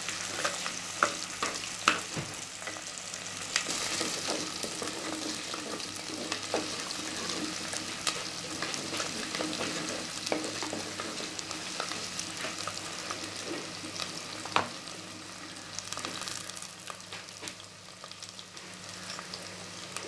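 Chopped shallots sizzling in hot oil in a clay pot, sautéing toward browning, while a spoon stirs them, scraping and knocking against the pot in scattered clicks with a couple of sharper knocks. The stirring eases off near the end.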